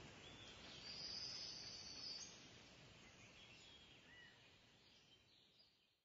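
Near silence: a faint background ambience with a few small high chirps fades out about two seconds in, leaving silence.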